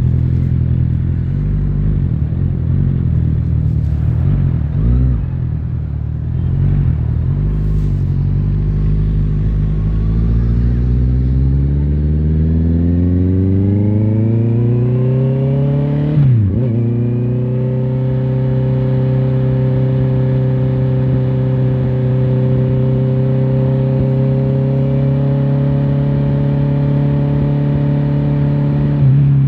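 Honda CBR650R's inline-four engine on the move: a low, uneven rumble for the first dozen seconds, then a steadily rising engine note under acceleration, a quick dip at an upshift about 16 seconds in, and a steady engine note while cruising, easing off slightly near the end.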